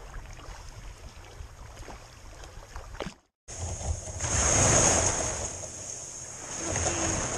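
Low wind rumble on the microphone with faint water around the wader's legs. After an abrupt cut about three seconds in, small lake waves wash up on a sandy shore in two swells, the first the louder.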